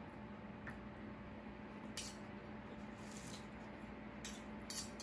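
Metal spoon and fork clinking lightly against a ceramic plate while eating: one clink about two seconds in and a couple more near the end, over a low steady hum.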